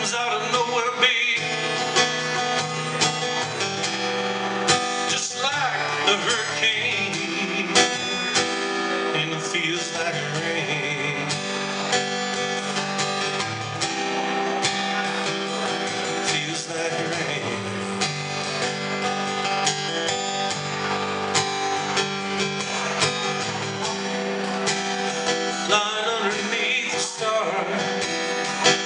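Steel-string acoustic guitar strummed and picked steadily in a solo performance, with a man's voice singing in places.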